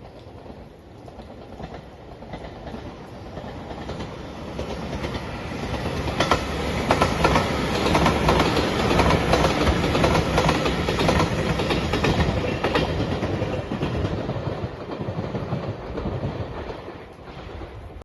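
Electric passenger train passing at speed, its wheels clicking rhythmically over the rail joints. The sound builds for about six seconds, is loudest through the middle, and fades away near the end.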